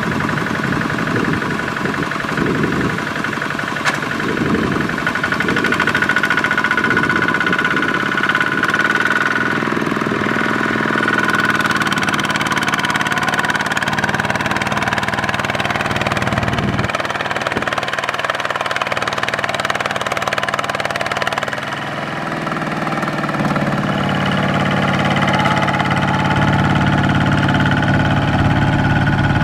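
Kubota ZT155 power tiller's single-cylinder diesel engine running hard under load as it drags a loaded trailer through sticky mud. The engine note shifts in pitch, dips about three quarters of the way through, then climbs again.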